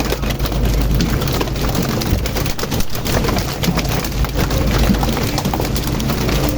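Fishing boat's engine running steadily, with many irregular knocks and slaps over it.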